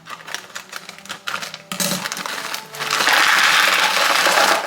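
Frozen green beans clattering as they are handled and poured into a dish: small hard pieces tick and rattle at first, then a loud, dense rush of pouring over the last second and a half.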